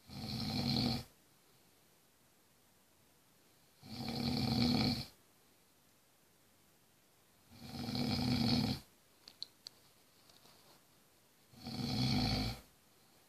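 A man snoring in his sleep: four loud snores, each lasting about a second, coming about every four seconds.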